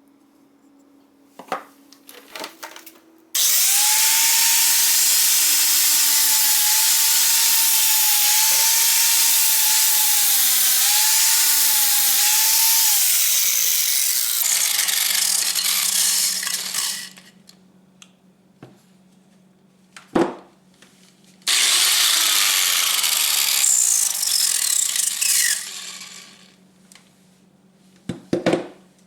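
Small power tool running in two long spells, with a loud hiss over a motor whine that wavers under load and winds down as it stops, while rust is stripped from a door hinge. Short clicks and knocks come before and between the spells.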